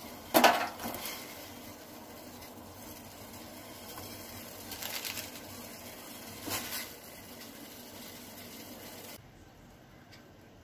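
Water boiling in a stainless steel pot on a gas stove, a steady bubbling hiss that cuts off near the end. There is a sharp, loud clatter or splash about half a second in and a few smaller ones around five and six and a half seconds in.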